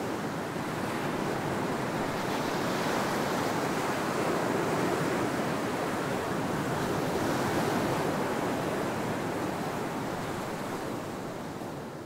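Small ocean surf breaking and washing up a sandy beach: a steady rush of water that swells and eases, fading out near the end.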